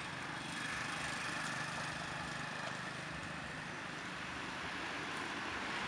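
Steady outdoor background hum of an engine, with an even hiss over it and no distinct events.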